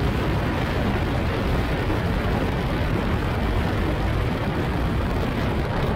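Open-cockpit Phoenix R1 kit car at speed, its Yamaha R1 inline-four motorcycle engine running under a dense noise of wind and road rush at a steady level.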